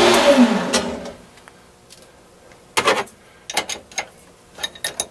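Grizzly G0602 bench lathe winding down after being switched off, its running hum falling in pitch and dying away within the first second. Then scattered sharp clicks and knocks as the tailstock and its handwheel are handled, the loudest about three seconds in.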